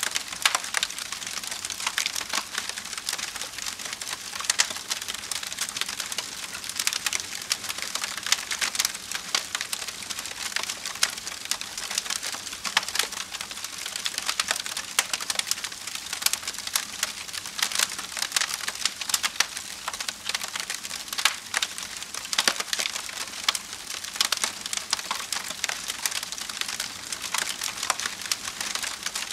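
Campfire burning, the wood crackling fast and steadily with frequent sharper pops.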